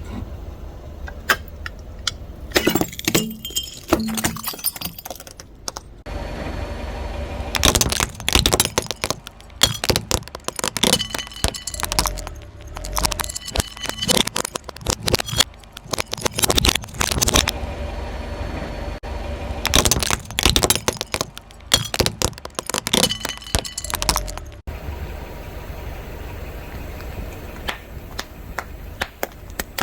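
A car tyre slowly rolling over and crushing brittle objects: bouts of cracking, snapping and crunching over the car's low engine rumble.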